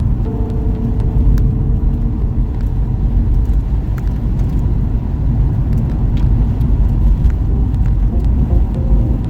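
A car driving, a steady low rumble of engine and road noise throughout, with scattered faint clicks and a faint humming tone for the first few seconds.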